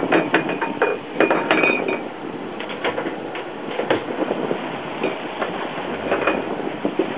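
Irregular knocks, rattles and clinks of loose gear shaking aboard a trolling fishing boat, over a steady rushing noise.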